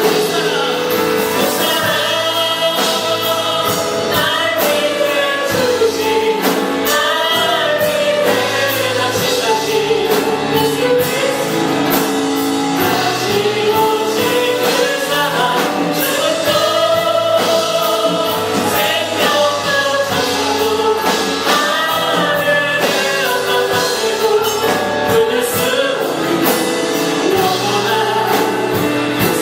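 Congregation and worship team singing a Korean gospel hymn to a band accompaniment with a steady beat.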